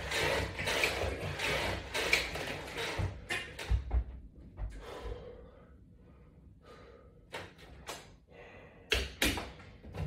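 Metal latch bar and resistance-band attachment hardware rattling in time with exercise repetitions, about once a second for the first few seconds, then scattered clicks. Near the end there is a louder clatter as the bar is hooked back onto its wall mount.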